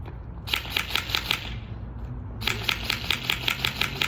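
Airsoft gun firing two rapid bursts of shots, about six a second. The second burst is longer, about ten shots.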